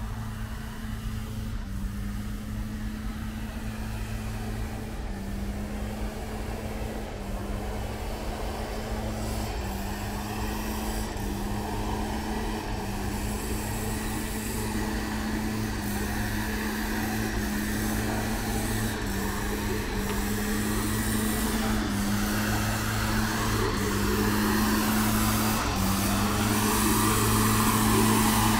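A motor engine running, a low hum that wavers between two close pitches, growing steadily louder as it comes nearer.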